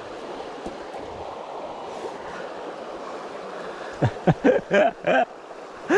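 Steady rush of running creek water, with men's voices talking briefly about four seconds in.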